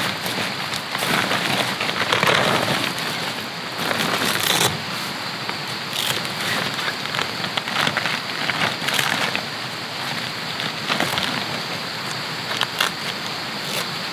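Clear urethane tent window panel crinkling and crackling as it is handled and pressed onto the tent's velcro strips, many short crackles over a steady rush of flowing water.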